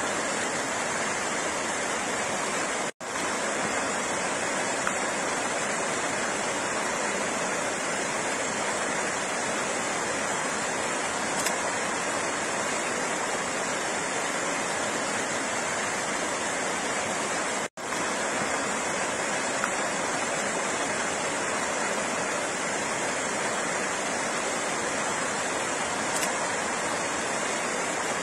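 Flowing water rushing steadily, an even, unbroken hiss of moving water. It drops out for an instant twice, about 15 seconds apart.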